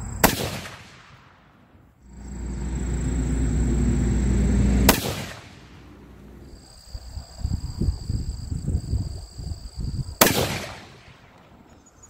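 Three shots from a 270 Winchester Short Magnum rifle, each a sharp crack, about five seconds apart. A low rumble builds before the second shot, and irregular low thumps come before the third, with steady high insect calls throughout.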